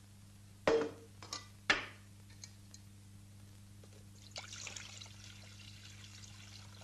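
Two clanks of metal kitchen pots being handled, about a second apart, then milk being poured from a jug into a pot, a splashing pour that tails off.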